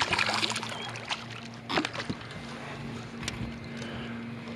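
Water splashing as a hooked fish is brought to the boat, with a few sharp knocks against the boat, over a steady low hum.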